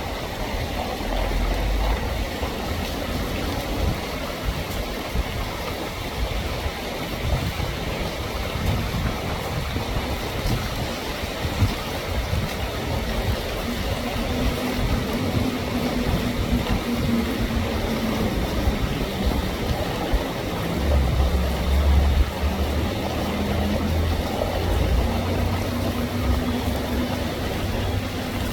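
Steady rain falling, a continuous even hiss. A low rumble joins it at times in the second half and is loudest a little past the middle.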